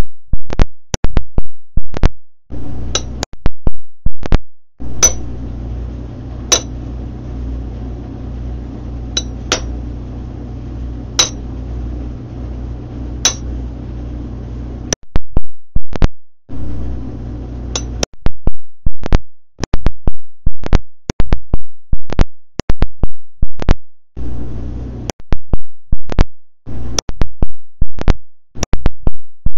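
A hammer tapping a small metal broguing punch into a leather boot sole to stamp a decorative pattern: sharp metallic strikes, scattered at first and then coming about two a second in the second half.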